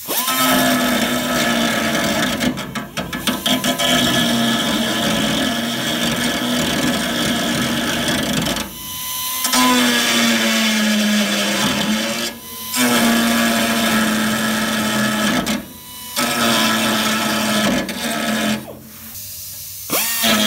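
A handheld pneumatic tool, run off an air hose, cutting into a steel car frame rail to enlarge a hole. It runs in several runs of a few seconds each, with short pauses near 9, 12, 16 and 19 seconds. Within each run its pitch sags slightly as it bites into the metal.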